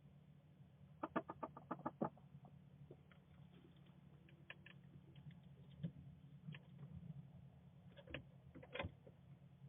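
Sleeping roosting chicken snoring: a quick run of about eight faint clicking clucks about a second in, then scattered soft clicks, over a steady low hum.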